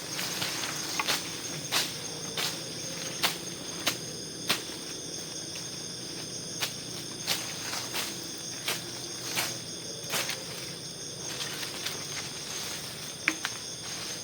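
Forest insects chirring steadily in high, unbroken tones, with sharp irregular clicks and snaps over them, more often in the first half.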